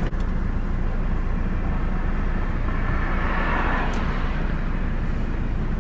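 Steady rumble and hiss inside a parked car with the engine running, with a brief click at the very start.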